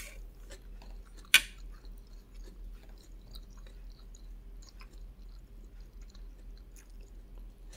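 Close-up chewing of fried egg and rice: soft, wet mouth clicks throughout, with one sharp click about a second and a half in. A low steady hum sits underneath.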